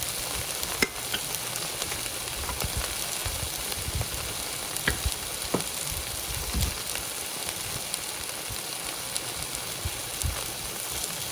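Tomato paste and tomato sauce sizzling steadily in a hot soup pot, with scattered light clicks.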